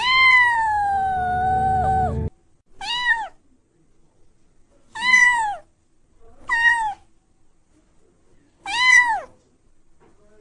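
A domestic cat meowing: one long drawn-out meow, then four short meows a second or two apart, each rising and then falling in pitch.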